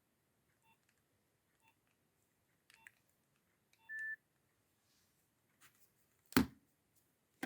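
Nokia 6610 mobile phone beeping: faint short beeps about once a second, then a single louder, steady beep about four seconds in. Near the end comes a loud thump, then a click.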